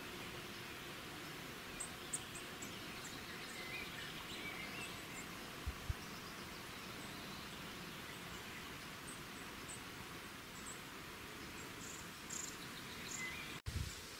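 Steady outdoor background hiss with faint, scattered high chirps. Two short low knocks come about six seconds in, and the sound drops out briefly near the end.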